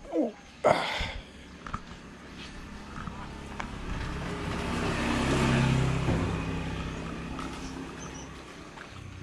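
A motor vehicle drives past, its engine hum and tyre noise swelling to a peak about halfway through and then fading away. A couple of sharp knocks come right at the start.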